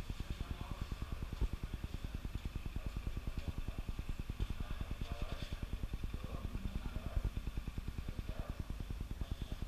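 A machine running with a steady low throb, about ten pulses a second, with faint distant voices behind it.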